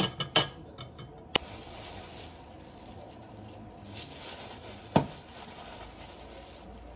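A metal spoon clinking and scraping against a ceramic bowl as ssamjang is spooned in, then a single sharp click and a faint steady rustle while minced garlic is spooned out of a plastic bag, with one more clink about five seconds in.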